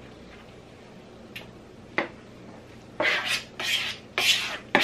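A spoon stirring thick ricotta cheese filling in a bowl: two light clicks against the bowl, then about three scraping strokes in the last two seconds.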